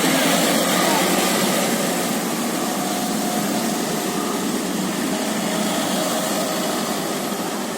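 Bus engine and road noise, a steady rushing that slowly fades.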